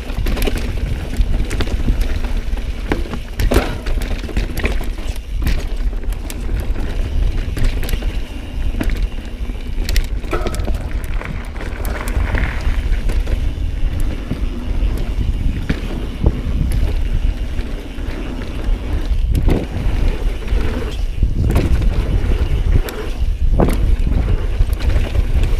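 Mountain bike, a Pivot Firebird, riding fast down a rough downhill trail: a steady rumble of wind buffeting and tyres on dirt, with frequent sharp clatters and knocks as the bike hits rocks and roots.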